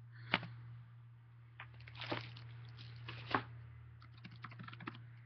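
Clicks and taps on a computer keyboard: a sharp click just after the start, a few louder taps about two and three seconds in, then a quick run of light key clicks near the end, over a steady low hum.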